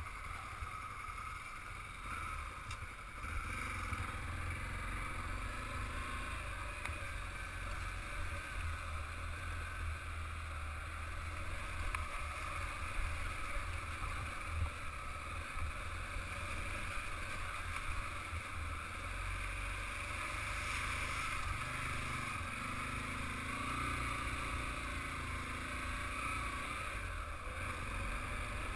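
Dirt motorcycle running steadily while riding over a rough dirt and stone track, with uneven wind rumble on the microphone.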